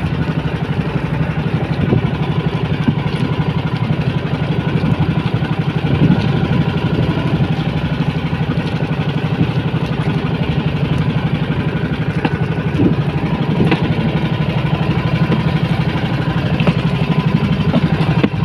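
Small fishing boat's engine running steadily at a constant speed, a fast, even low chugging that does not change.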